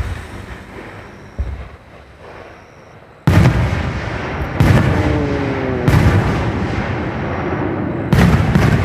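Fireworks shells going off close by: a couple of lighter thumps in the first two seconds, then from about three seconds in a string of loud booms, about five, with crackling noise between them.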